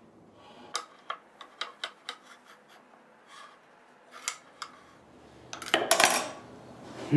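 Small steel square clicking and tapping against the plywood as it is set and adjusted, then a short scrape near the end as it is laid down and slid on the wood.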